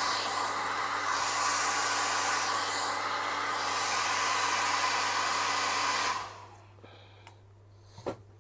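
Hot air blower running steadily, then switched off about six seconds in; a single sharp click near the end.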